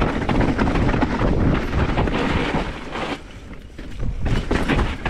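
Rushing wind noise on the microphone with a low rumble, easing off for about a second around three seconds in.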